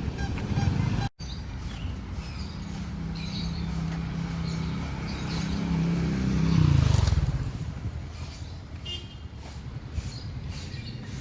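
Outdoor street traffic: a motor vehicle's engine passes close by, loudest about seven seconds in, its pitch falling as it moves away.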